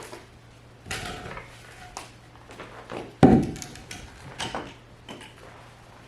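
Scattered knocks and clunks of things being handled, with one heavy thud about three seconds in.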